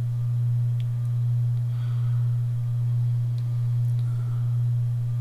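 Steady, loud low electrical hum, a single unchanging tone, with a few faint ticks from small parts being handled.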